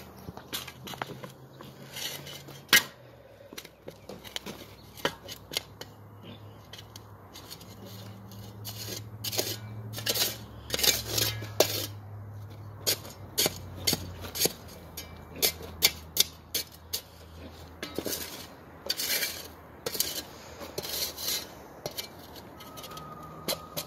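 Steel shovel digging into gravelly ground: irregular sharp metallic clinks and scrapes as the blade strikes stones and grit.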